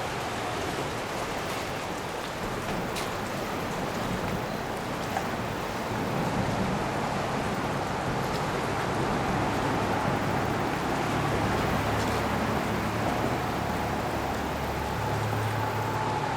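Flooded Platte River flowing, a steady rushing water noise, with a low steady hum joining about six seconds in.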